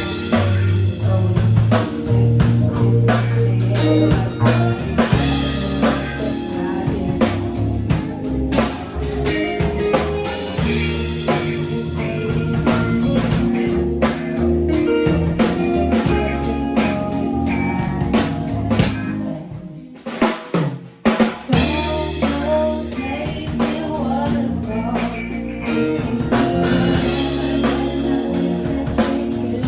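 Rock band music with a steady drum-kit beat of snare and bass drum under bass and guitar; the band drops out briefly about two-thirds of the way through, then comes back in.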